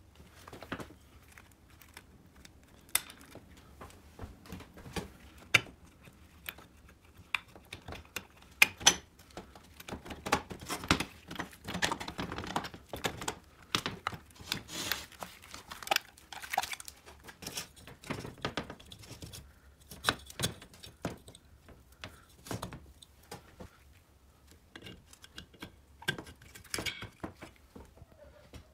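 Irregular clinks, taps and scrapes of metal engine parts being handled and fitted together by gloved hands, with some rustling. The clicks come thickest in the middle and thin out near the end.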